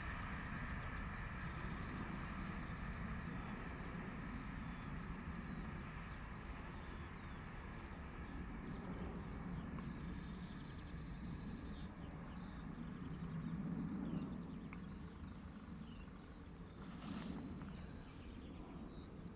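Peppercorn A1 Pacific steam locomotive and its train running past in the distance, a low rumble slowly fading as it draws away, with birds chirping throughout.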